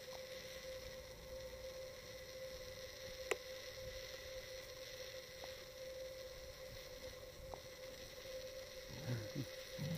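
Faint steady electrical hum with a sharp click about three seconds in, then two short low grunts from a black pig near the end.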